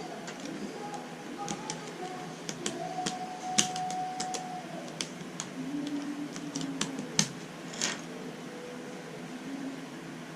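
Plastic Rubik's Cube pieces clicking and snapping as they are handled and pressed onto the cube's core: a run of irregular sharp clicks, a few of them louder.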